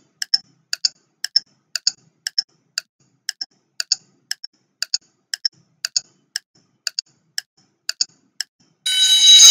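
Countdown-timer clock ticking, a sharp tick about twice a second, counting down the seconds. Near the end a loud steady buzzer starts, signalling that time is up.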